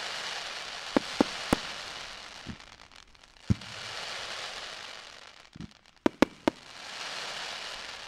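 Fireworks display: shells bursting into white glittering stars, giving a hiss that swells and fades about three times. Sharp bangs and duller thumps are scattered through it, with a quick cluster of three loud bangs about six seconds in.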